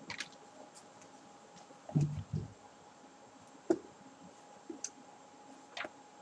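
A few faint, scattered clicks and ticks, with a short low thump about two seconds in.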